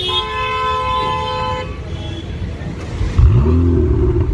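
A car horn sounds one steady honk of about a second and a half. About three seconds in, a car engine revs up sharply and falls back, then keeps running with a deep rumble; this rev is the loudest sound.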